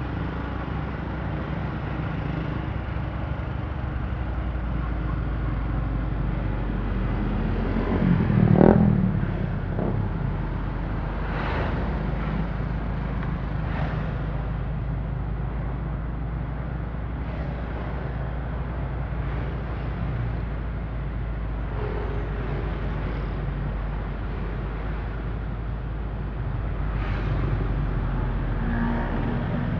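Street traffic heard from a moving vehicle: a steady engine and road rumble among motorbikes and cars, with one louder swell as something passes close about eight seconds in.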